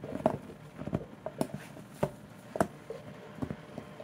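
Irregular sharp clicks and light knocks, one or two louder ones a second with fainter ticks between.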